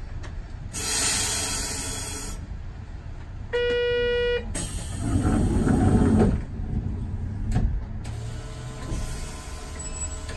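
Streetcar and street traffic at a city crossing: a burst of air hiss about a second in, then a single steady horn note lasting just under a second, followed by a heavier low rumble of vehicle running noise.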